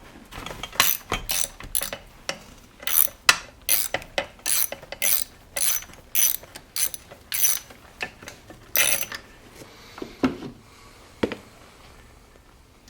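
Ratchet wrench clicking in a run of short strokes, about two clicks a second, while fasteners are worked loose on a chainsaw; a few softer knocks of metal parts follow near the end.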